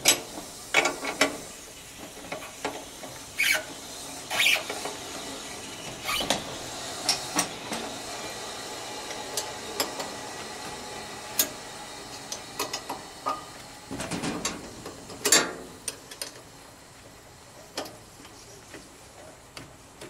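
Refrigerant charging hose being worked off an air conditioner outdoor unit's service-port fitting: scattered metal clicks and knocks from the fitting, with several short hisses of escaping refrigerant, the biggest about two thirds of the way through.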